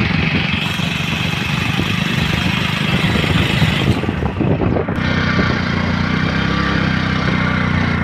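Motorbike engine running as it rides along a road, with wind rushing over the microphone. About five seconds in, the engine's steady drone comes through more clearly.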